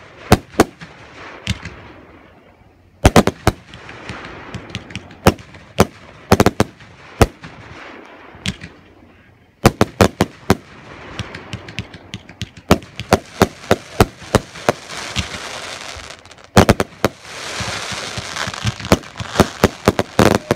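Aerial fireworks shells bursting overhead in quick volleys of sharp bangs, with crackling stars in between. The crackle thickens into a dense, continuous crackling over the last few seconds.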